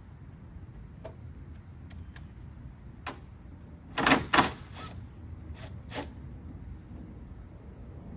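Hard plastic clicks and knocks from a headlight housing being pushed and adjusted to sit flush: a handful of separate sharp clicks, the loudest two in quick succession about four seconds in.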